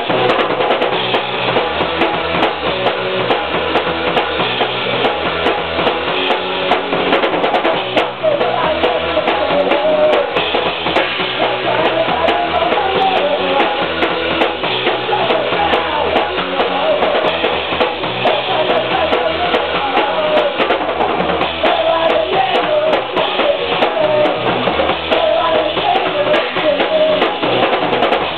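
Rock band playing live, the drum kit loudest, with its bass drum and snare driving a steady beat. The recording sounds dull, with nothing in the upper treble.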